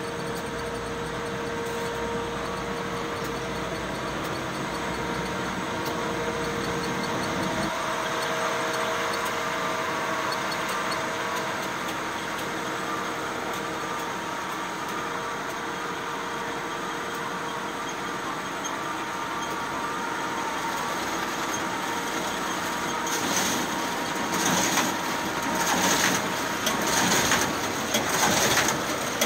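Duplo System 4000 booklet-making system running: a steady mechanical hum with a few held tones. In the last several seconds, a run of irregular clacks and knocks rises above it.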